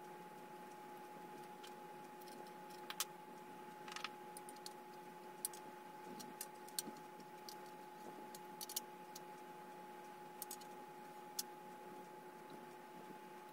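Light scattered clicks and taps from small hard-drive mounting pegs (screws) being handled and fitted into a 2.5-inch solid-state drive, over a steady faint hum.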